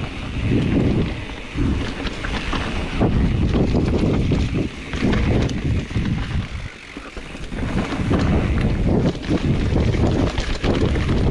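Wind rushing over the camera's microphone on a mountain bike descending a dirt trail, mixed with tyres rolling over dirt and the bike rattling over rocks and roots. The rush eases for about a second a little past the middle, then builds again.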